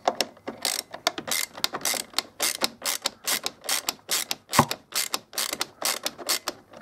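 Ratcheting T25 Torx driver clicking as a bolt is backed out, in quick uneven runs of several clicks a second, with one heavier knock about two-thirds of the way through.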